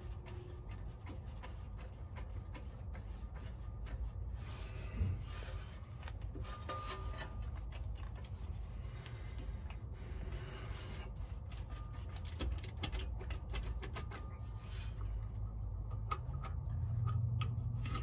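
Faint scattered clicks, taps and rubbing as a hand works the plastic wiring connectors and housing of a Chevy Tahoe's ABS control module (EBCM) from underneath, over a low steady rumble.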